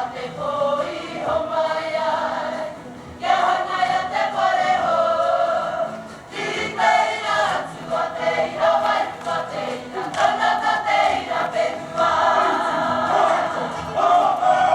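A group of voices singing together in phrases of a second or two, with short breaks between them.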